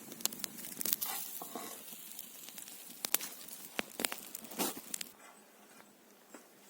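Irregular crunching and crackling with sharp clicks, dying down about five seconds in.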